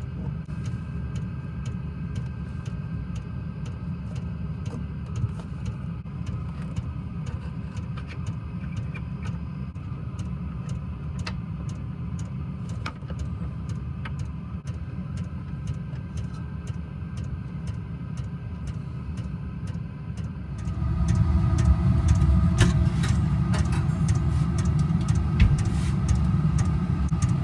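A steady low rumble with scattered light clicks, stepping up louder and fuller about 21 seconds in.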